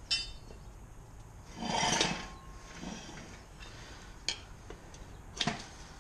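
Steel tire irons and the tire changer clinking as a knobby dirt-bike tire is levered over its spoked rim: a ringing metal clink at the start, a longer scrape of tire on rim about two seconds in, and sharp clicks later on.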